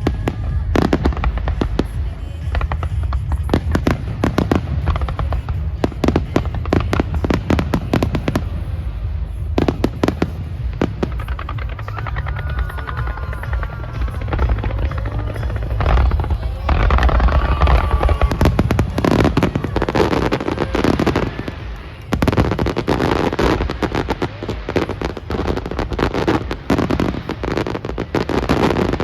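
Aerial fireworks bursting in quick succession: deep booms under dense crackling, growing thicker in the second half.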